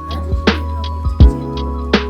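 Background music with a steady beat: a deep bass line under held pitched notes, with regular kick-drum and snare hits.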